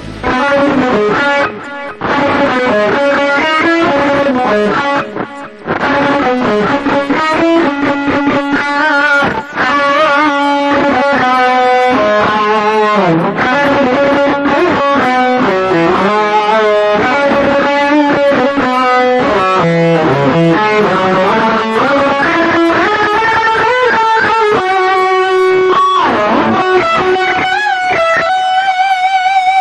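Electric guitar with an overdriven tone playing a lead solo in C sharp minor: a run of picked melody notes with string bends and vibrato, ending on one long held note.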